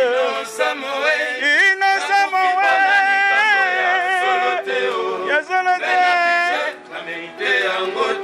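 A man singing unaccompanied, with long held notes that slide in pitch and short breaks between phrases.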